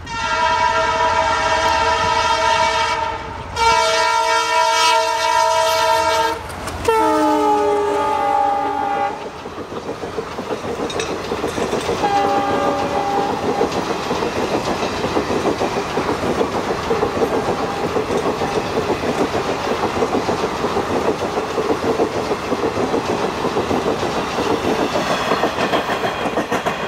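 WDM3A diesel locomotive's horn sounding in three long blasts, the third falling in pitch as the locomotive passes, then one short blast about twelve seconds in. After that the express's coaches run past steadily, wheels clattering over the rail joints.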